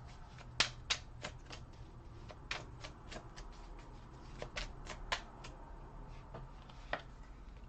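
Tarot cards being shuffled by hand: irregular sharp clicks and snaps of card stock, with a faint steady low hum underneath.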